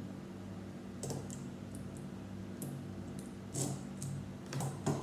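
Lego plastic pieces clicking and rattling as a small motorcycle build is handled and set down on a wooden table: a handful of small separate clicks, with louder knocks about three and a half seconds in and again near the end.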